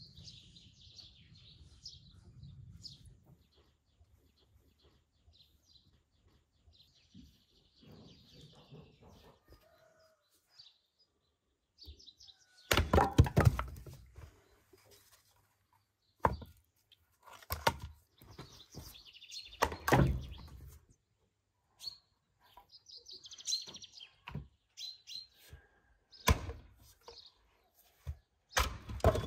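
Small birds chirping on and off, then a series of loud sharp wooden knocks and thunks as firewood is handled and split with an axe on a chopping stump, the loudest a cluster about halfway through.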